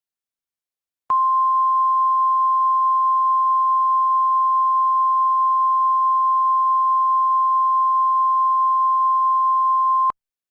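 NOAA Weather Radio 1050 Hz warning alarm tone: one steady, pure high tone that starts about a second in, holds for about nine seconds and cuts off sharply. It is the alert signal that comes before a warning message is read out.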